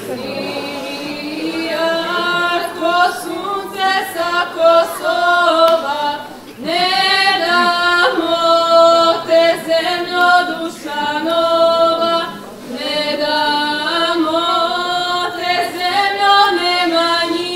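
Two women singing an unaccompanied Serbian folk song in held, drawn-out phrases, with brief breaths about six and twelve seconds in.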